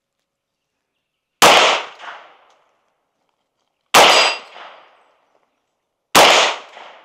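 Three single shots from a Bear Creek Arsenal bufferless 9mm pistol, about two and a half seconds apart. Each sharp crack trails off over about a second, with an echo half a second after it.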